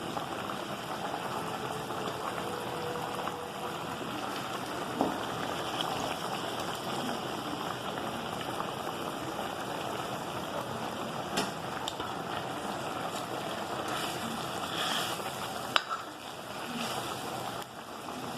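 Fish curry bubbling steadily in a pan as it simmers after water has been added, with a few sharp clicks.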